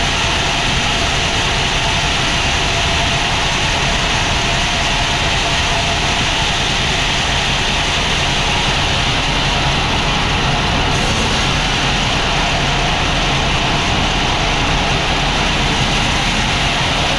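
Sawmill machinery running steadily: a continuous mechanical drone with a hiss over it that stays even throughout.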